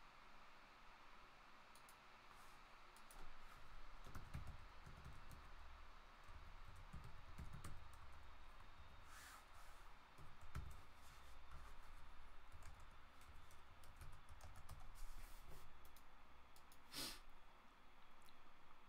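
Faint computer keyboard typing and mouse clicks, scattered short clicks, with a few soft low thumps in the first half.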